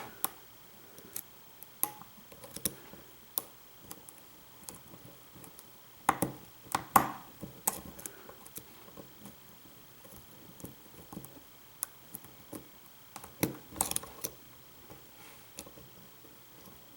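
Lock pick and tension wrench working a pin-tumbler lock: scattered light metal clicks and ticks, with louder clusters about six seconds in and again near the end.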